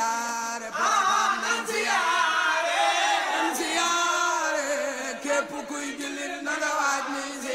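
Group of voices chanting a Wolof praise song in chorus.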